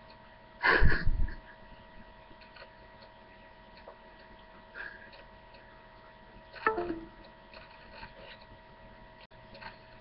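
Two short stifled laughs from a man, about six seconds apart, over a steady electrical hum.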